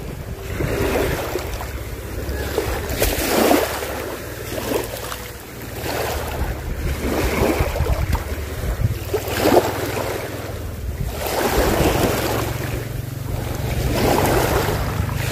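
Small waves washing onto the shore, swelling and fading every two to three seconds, with wind rumbling on the microphone.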